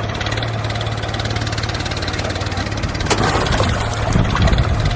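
Heavy diesel engine running steadily at idle with an even, fast pulse, getting louder and rougher from about three seconds in, with a sharp knock at that moment.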